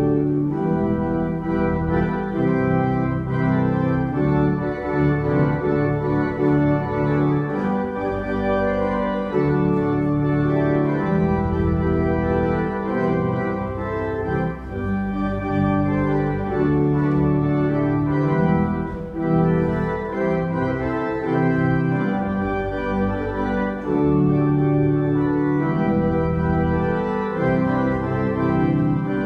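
Church organ playing slow, sustained chords that change every second or two, a voluntary with no singing.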